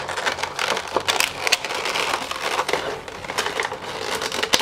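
Clear plastic clamshell packaging crinkling and crackling as it is pried open, with many quick snaps and clicks throughout.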